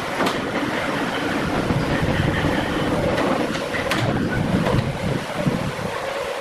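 Woodworking plant machinery running steadily, with a faint steady hum and a few sharp knocks, the clearest about four seconds in.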